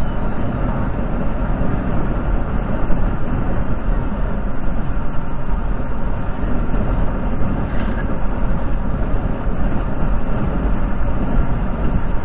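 Steady road and engine noise of a car cruising at highway speed, heard from inside the cabin, a constant low rumble.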